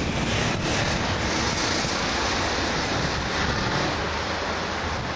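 Steady rushing street-traffic ambience, with a faint knock about half a second in.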